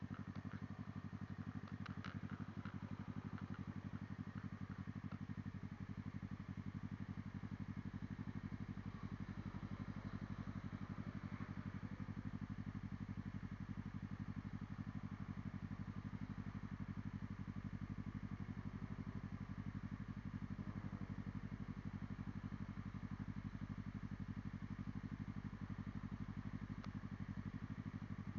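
Motorcycle engine idling steadily, an even low-pitched running sound that does not rise or fall.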